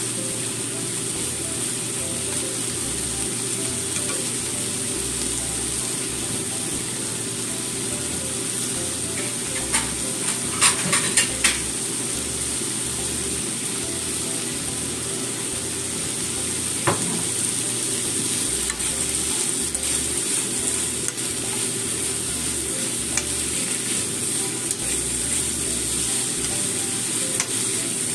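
Cabbage and ham sizzling as they are stir-fried in a frying pan and tossed with wooden chopsticks, the cabbage softening at the end of cooking. A few sharp knocks come about ten to twelve seconds in, with one more a few seconds later.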